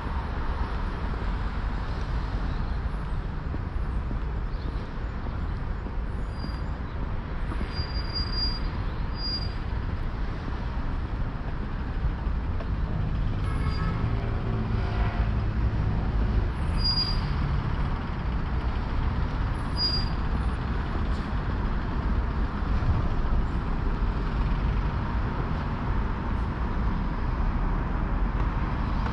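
City street traffic: a steady low rumble of passing cars and buses, with a few faint, short, high squeaks over it.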